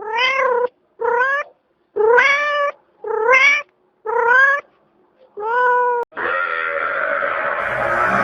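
A domestic cat meowing six times, each meow a pitched call that rises and then falls. About six seconds in, a different, steady, noisier sound takes over.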